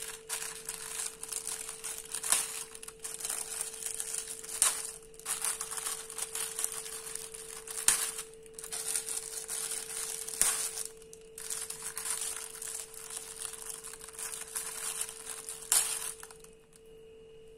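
Clear plastic oven bag crinkling and crackling in irregular bursts as it is handled and pierced with a knife. The crinkling stops about a second and a half before the end, over a faint steady hum.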